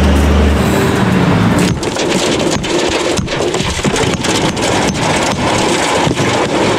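A diesel semi truck idling with a steady low hum for the first second and a half or so. Then a hammer knocking repeatedly and irregularly on the brick and mortar of an old chimney as it is broken apart, with bricks and rubble scraping and clattering.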